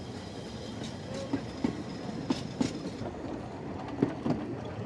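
Narrow-gauge railway carriages rolling slowly past, their wheels knocking over the rail joints a few times a second over a steady rumble.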